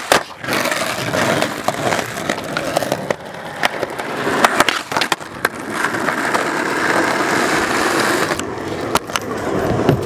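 Skateboard wheels rolling over rough asphalt, with several sharp clacks of the board as tricks are popped and landed.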